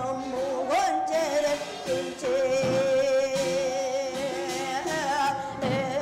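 A Korean shaman's ritual song (muga) over a traditional shamanic ensemble: a female voice holding long notes with a wide vibrato, and drum strokes now and then.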